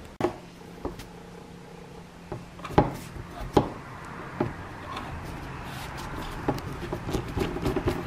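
Screwdriver turning a screw in the recessed screw hole of a turntable's plastic base panel, taking the back off: scattered clicks and knocks, then a run of quick scraping ticks in the last few seconds.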